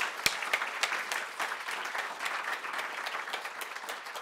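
Audience applauding, with a couple of louder single claps at the start; the applause thins out near the end.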